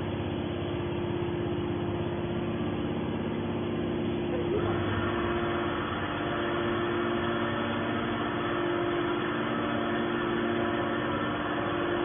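Scrap metal baler's hydraulic power unit running, a steady machine hum with a held tone. About four and a half seconds in, a brighter, hissier layer joins and keeps on.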